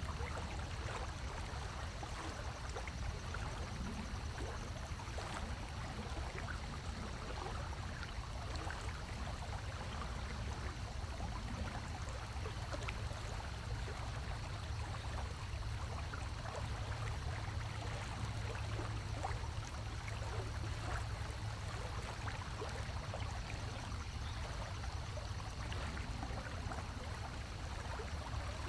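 A stream running steadily, a continuous babble of water over a low rumble.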